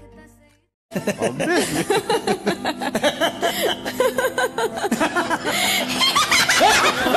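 A song fades out into a moment of silence; about a second in, loud, hearty laughter starts, in quick rising-and-falling peals over faint music.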